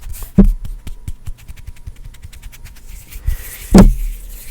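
Close-up rubbing and scratching on an ASMR microphone: a run of small crackles, with two deep thumps about half a second in and near the end.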